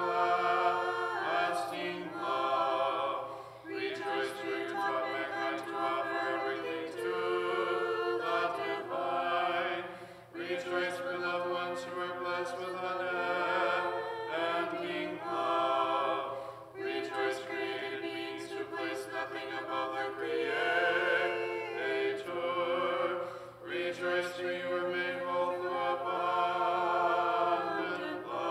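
Small choir singing Orthodox liturgical chant a cappella, in phrases several seconds long with brief breaks between them.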